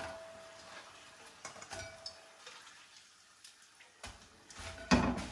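Metal tongs clinking against a wok as chips are lifted out of the hot oil, each tap followed by a brief ringing tone, with a soft dripping. A louder clatter of the tongs near the end.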